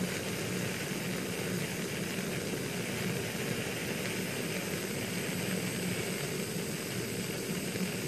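Handheld gas torch burning steadily, a constant hissing rush of flame played onto a test piece to heat it.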